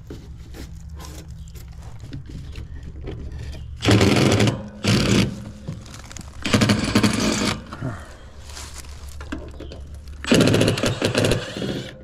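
A Milwaukee cordless power driver runs in four short buzzing bursts, about four seconds in, twice more soon after and once near the end, backing sheet-metal screws out of the gas pack's cabinet panels. A steady low hum runs underneath.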